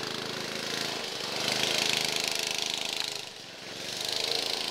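Go-kart engine running as the kart drives away across the lawn. It grows louder about a second and a half in, dips briefly near three seconds, then picks up again.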